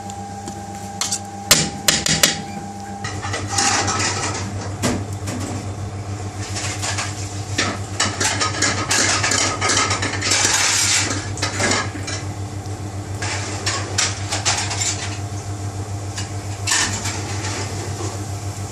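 A metal spoon clinking and scraping against a bowl as paneer is stirred into thick tandoori sauce. About three seconds in, this gives way to a steady low hum with hiss and scattered clicks and clatter from the kitchen around a lit tandoor.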